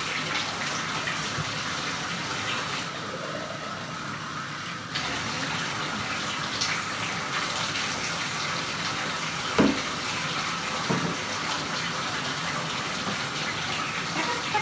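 Tap water running steadily into a bathtub during a dog's bath. A single short thump about two-thirds of the way through.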